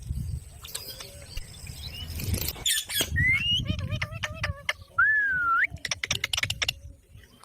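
Pet parrot whistling: a short rising whistle about three seconds in and a longer wavering whistle that sweeps upward about five seconds in, amid a quick run of sharp clicks and a low background rumble.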